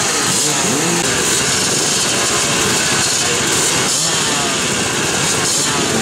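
A start line full of vintage twinshock motocross bikes revving their engines together while waiting at the gate, many engine notes rising and falling over one another.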